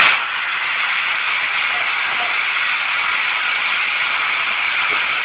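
ST Net Communications anti-theft fog generator discharging: a loud, steady hiss of fog jetting out of the unit.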